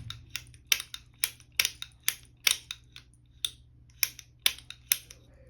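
Light, sharp clicks and taps of small metal tools and parts on an AR-9 pistol-caliber polymer lower, in an irregular run of about three or four a second.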